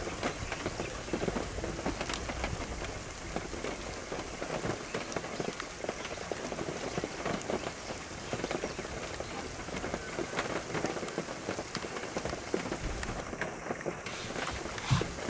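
Steady rain falling, heard as an even hiss full of many separate drop ticks, with one louder knock near the end.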